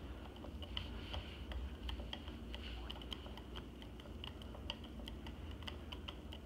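Faint light clicks, about three a second and slightly uneven, as a flathead screwdriver tightens the pivot screw of a motorcycle's front brake lever.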